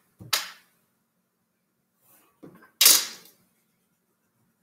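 Plastic ruler and paper being handled on a tabletop while drawing: a short scrape about a third of a second in, and a louder, brief scrape just under three seconds in.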